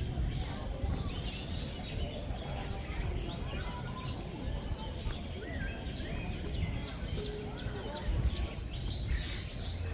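Many birds chirping and calling over one another in short, scattered notes, over a steady high-pitched insect-like buzz and a low background rumble of people.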